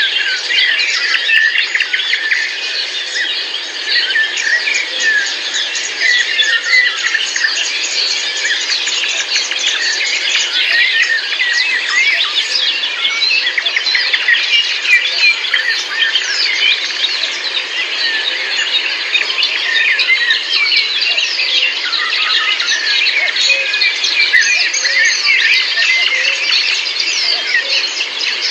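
A dense chorus of many small birds chirping and calling at once, a constant tangle of quick, high chirps.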